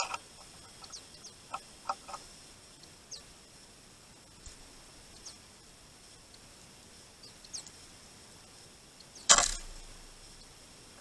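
Small birds at a winter feeder: scattered short, high, thin calls, a few light taps in the first two seconds, and one loud sudden knock with a short rustle about nine seconds in.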